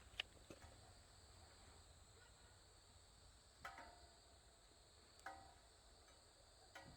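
Burning firewood in a wood stove giving occasional sharp pops and crackles, five or so, the louder ones each with a brief ring, over a faint steady hum.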